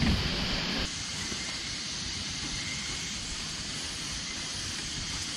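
Strong wind blowing, a steady rushing noise with a low rumble. About a second in it drops to a quieter, duller rumble.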